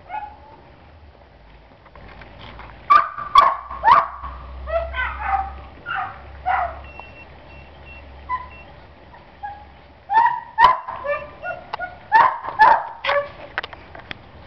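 Kuvasz dogs giving short high yips and whines in two bouts, the first from about three to seven seconds in and the second from about ten to thirteen seconds in.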